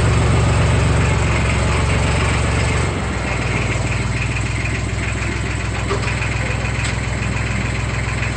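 Tractor engine idling steadily, the running note stepping down and getting a little quieter about three seconds in.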